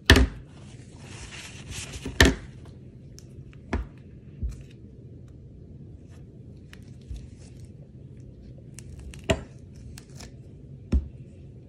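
A wire soap cutter drawn through a loaf of cold process soap: a rough scraping hiss for about two seconds, opening and ending with loud knocks as the wire frame strikes the wooden cutting base. Softer scattered knocks follow as the loaf is pushed along the base and the cut bar is lifted off.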